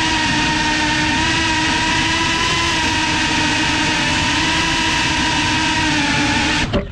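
FPV quadcopter's motors and propellers whining steadily in a hover, heard from the drone itself. Near the end a short bump comes and the whine cuts out abruptly as the motors are killed.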